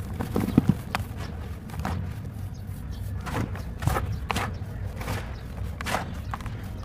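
Soft, dusty cement chunks snapping and crumbling in a string of irregular crisp snaps, about a dozen over the stretch, with the sharpest near the start.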